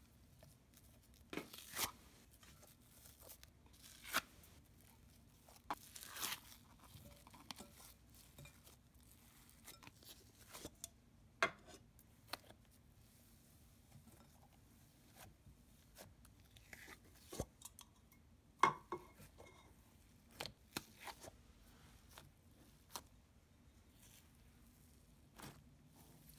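Slime being stretched and mixed by hand: scattered soft crackles, pops and tearing sounds at irregular intervals, all faint.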